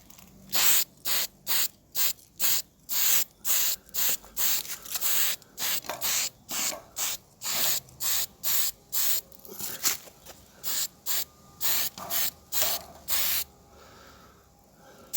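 Spray paint hissing out in quick short bursts, about two a second, as a second coat goes onto a lawn mower engine's cowling. The bursts stop near the end.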